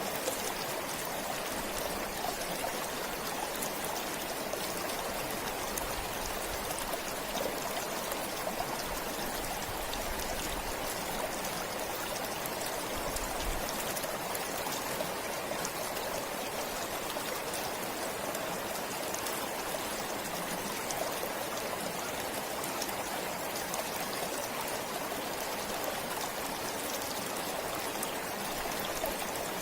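Stream flowing steadily: an even, unbroken rush of running water.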